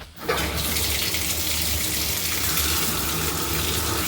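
Water turned on through a newly sweated-in shower valve, rushing out in a steady gush that starts abruptly just after the beginning. This is the first run of water after soldering, testing the new joints.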